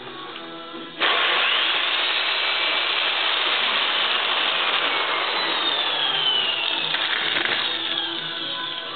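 Corded drill spinning a hole saw in reverse against acrylic sheet, melting its way through rather than cutting. The drill starts suddenly about a second in and runs loudly, with a whine that sags in pitch under load, easing off near the end.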